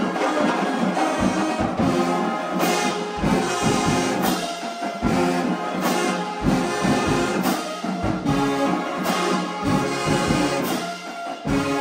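Full marching band brass section playing loud together, with sousaphones, trumpets, trombones and mellophones, in short punchy rhythmic figures.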